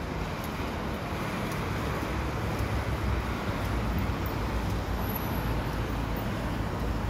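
City road traffic on a wet street: a steady hiss of tyres on the wet road over a low engine rumble.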